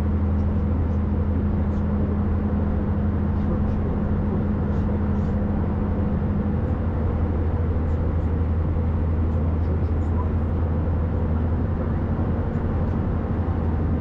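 Steady cabin drone inside an Airbus A319 airliner, with a low engine hum under it. A fainter, higher hum drops out about halfway through.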